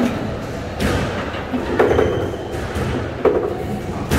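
Squash ball striking the court walls: three dull thuds spaced a second or so apart.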